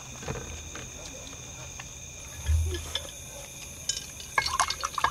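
Steady high trilling of night insects in the background, with small clicks and crunches of people eating with their hands. There is a dull bump about halfway and a quick cluster of sharper crunchy clicks near the end.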